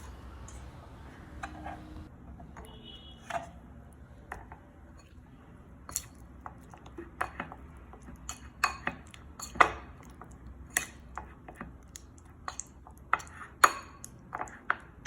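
A spoon clinking against a bowl while stirring paneer cubes into a curd-and-spice marinade: irregular sharp clinks, sparse at first, then coming thicker and louder from about halfway through.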